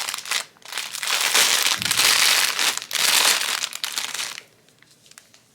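Packaging of a pack of makeup puffs crinkling and rustling as it is handled and opened, stopping after about four seconds.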